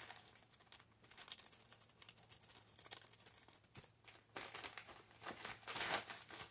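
Plastic courier mailer bag crinkling and rustling as it is cut open with scissors and unwrapped, in faint irregular rustles that grow louder about four to six seconds in.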